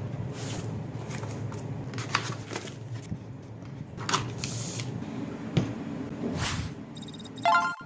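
Cardboard packaging being handled and opened: rustling with scattered short scrapes and clicks. Near the end comes a brief pitched tone that rises slightly.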